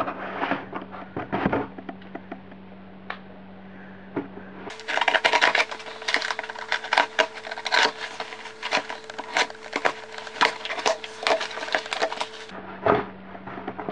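A mail package being torn open by hand, with cardboard and packing paper crackling and tearing. A few scattered rustles at first, then from about five seconds in a long run of quick, sharp crackles.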